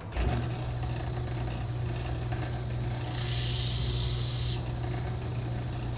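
Electric shop grinder switching on and running with a steady hum. From about three seconds in, for about a second and a half, a higher hiss joins it as a small steel drift key is faced against it to dress off a burr.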